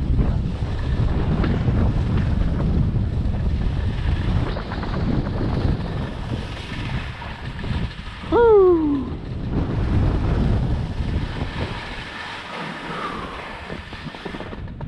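Wind rushing over the microphone of a skier moving downhill. About eight seconds in, a brief falling shout cuts through.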